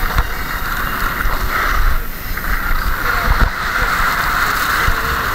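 Wind rushing over a helmet camera's microphone while skiing downhill: a steady rushing hiss with scattered low thumps and rumble from the ride over the snow.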